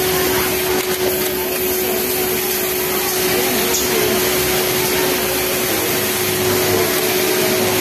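Steady motor hum of a Yamato industrial flatlock sewing machine and the sewing floor around it, with one even tone held throughout.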